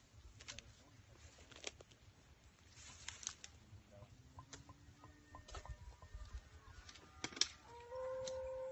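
Tall jaragua grass rustling and brushing against the phone, with scattered clicks. Near the end an animal call sounds once, a steady held note of about a second and the loudest sound here.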